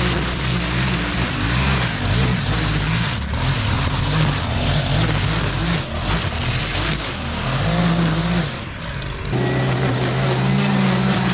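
String trimmer running and cutting tall grass, its motor pitch rising and falling as the line works through the grass, with a brief drop in level about three-quarters of the way through.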